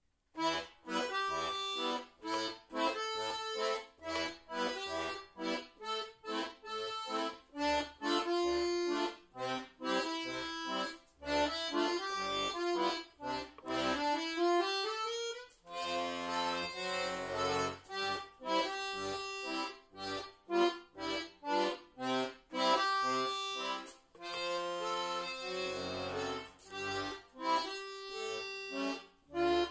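A bayan (chromatic button accordion) playing a solo piece: short separated melody notes over bass notes, a quick rising run about halfway through, then fuller chords with deeper bass.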